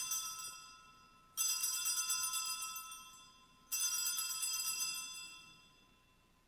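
Altar bells shaken at the elevation of the consecrated host, the sign marking the consecration: a ring already dying away, then two more about a second and a half and nearly four seconds in, each a bright jingling chime that rings out and fades over about two seconds.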